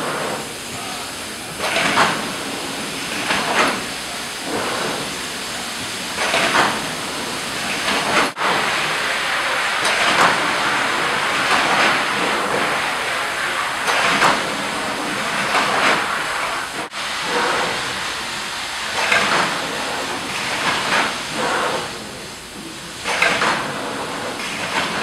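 Formula 5070 automatic carousel screen printing press running, its air cylinders hissing again and again over a steady machine noise. The audio drops out sharply twice.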